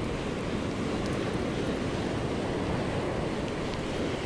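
Ocean surf washing up on a sandy beach, with wind on the microphone: a steady rushing noise.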